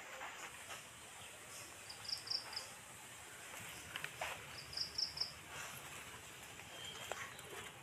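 Two short high chirps, each a quick run of three or four notes, about two seconds and five seconds in, over faint footsteps and rustling on a leafy path.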